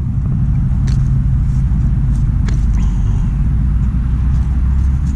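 A motor vehicle engine idling steadily, a low even hum, with a few faint ticks over it.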